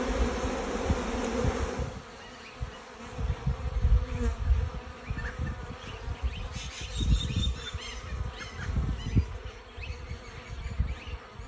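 A swarm of honeybees buzzing around a hive box, louder for the first two seconds and then fainter, with irregular low rumbles underneath.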